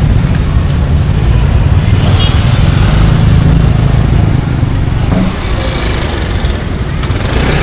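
Motorcycle engine running at low speed, a steady low rumble that eases a little after five seconds.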